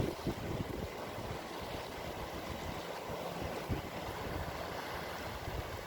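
Wind buffeting the microphone over a steady wash of sea water.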